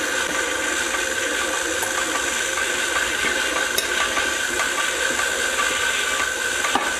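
KitchenAid stand mixer motor running steadily on low, mixing a heavy enriched bread dough. A few faint clicks stand out.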